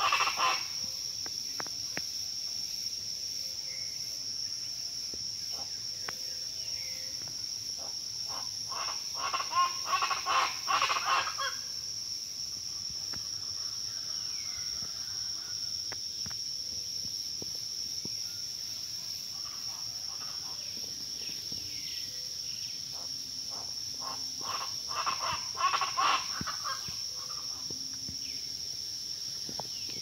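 Chachalacas (guacharacas) calling in loud bursts of rapid, repeated notes: right at the start, again about nine seconds in and about twenty-four seconds in. A steady high insect drone runs underneath, with faint whistles from other birds between the bursts.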